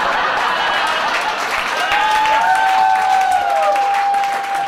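Comedy-club audience applauding a joke, a dense spatter of clapping, with one long, high held call rising out of the crowd from about two seconds in.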